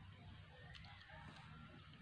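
Near silence: faint outdoor ambience with a couple of faint ticks.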